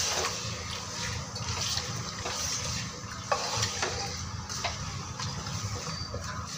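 Spatula stirring goat tripe, onions and spice paste in a pressure cooker: wet stirring through the sautéing masala, with several short scrapes and knocks of the spatula against the pot.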